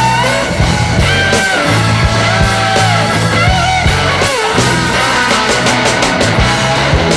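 Background rock music with electric guitar lines that bend in pitch over a steady bass and drum beat.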